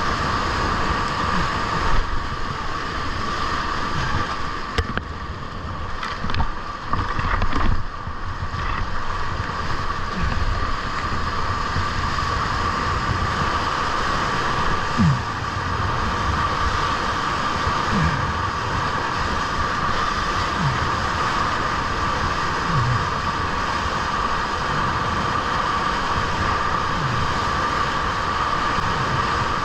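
Whitewater of a standing river wave churning and rushing around the hull of a kayak surfing on it, a steady close-up noise with a few brief low thumps.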